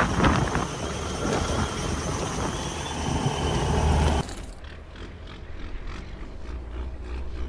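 Heavy dump truck running, a loud rough noise over a steady low engine hum that cuts off abruptly about four seconds in, leaving a quieter engine hum.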